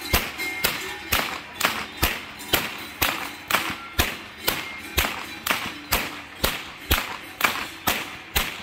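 A long whip swung overhead and cracked in a steady rhythm, about two sharp cracks a second.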